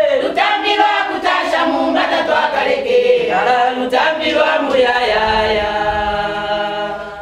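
A group of women singing a song together in chorus, their voices ending the phrase on a long held note that fades near the end.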